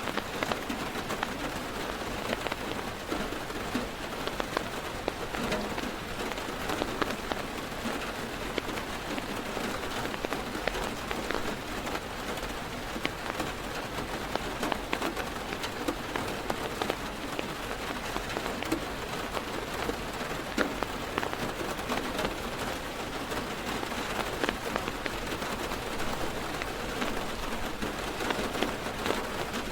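Heavy rain drumming on a car's roof and windows, heard from inside the car: a steady dense hiss full of small, sharp drop impacts.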